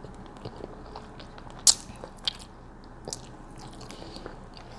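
Close-miked mouth sounds of someone eating a smoked barbecue rib tip off the bone: wet chewing and smacking clicks, with a sharp one under two seconds in and a few smaller ones after.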